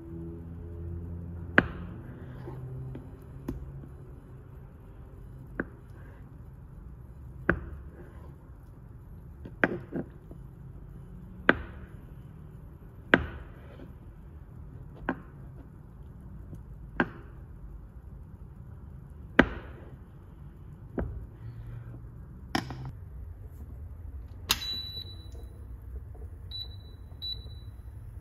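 Knife chopping down through a block of tofu onto a cutting board, one sharp knock every couple of seconds. Near the end, several short high beeps from an induction cooktop's controls.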